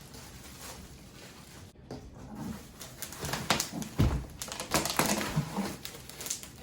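Packaging rustling and crinkling as chair parts are pulled from their box and wrappings, in irregular bursts that get louder about two seconds in, with a heavy thump about four seconds in as a piece is set down.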